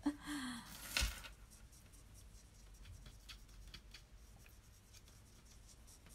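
Paintbrushes brushing and dabbing faintly on cardstock, with small scattered taps and one sharper knock about a second in.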